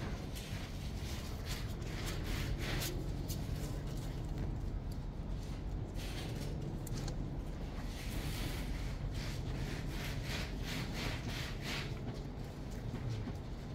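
Small kittens scrabbling and rustling on cardboard: irregular bursts of light scratching from their claws and bodies, over a steady low hum.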